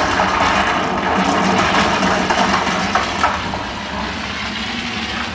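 Movie soundtrack played loud through a home theater surround system: a dense, noisy wash with strong low end and a few sharp knocks, no speech.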